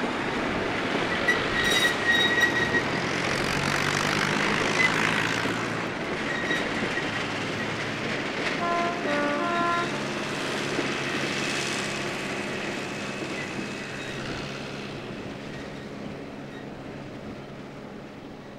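Narrow-gauge diesel train passing and drawing away: engine and wheels rumbling on the track, with a few short high squeaks in the first seconds. A brief horn call of several short stepped notes comes about halfway through, and the train noise fades steadily as it recedes.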